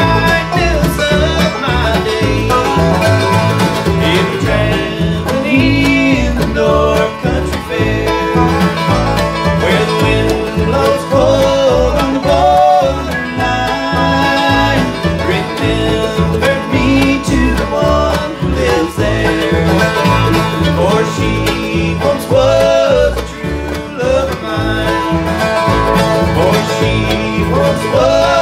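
Live bluegrass band playing: banjo, acoustic guitar, mandolin, lap-played resonator guitar and upright bass, with two men singing.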